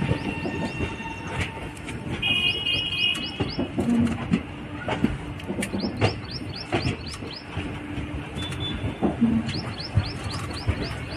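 Passenger train pulling out of a station, with steady running noise and scattered sharp knocks from the wheels crossing rail joints and points. A bird chirps in several quick runs of short high calls.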